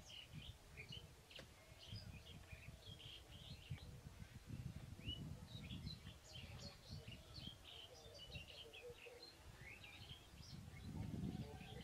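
Small birds chirping faintly, with many short chirps scattered throughout, over a low outdoor background rumble.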